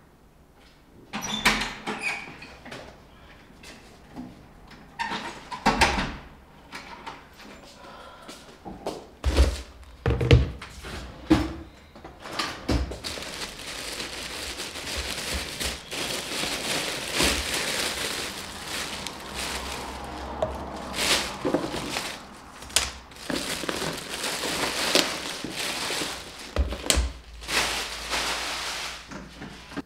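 Scattered thuds and knocks for the first dozen seconds, then a white plastic carrier bag crinkling and rustling steadily as it is untied and a plastic takeaway container is lifted out.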